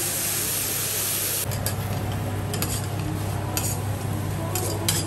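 Teppanyaki steel griddle: a loud hissing rush from a flame flare-up on the hotplate that drops away about a second and a half in. Then food sizzles as metal spatulas scrape and clack sharply against the steel, chopping fried rice, over a steady low hum.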